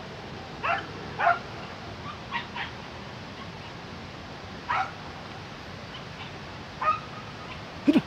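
Hunting dogs giving short, high yelps on a civet hunt, about seven scattered yelps, the loudest near the end.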